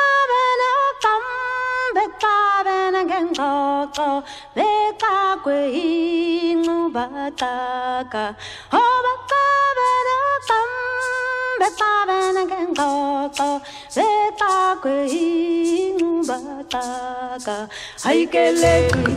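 Background music: a voice singing a melody with vibrato, almost unaccompanied, in short phrases; fuller backing with a low bass comes in near the end.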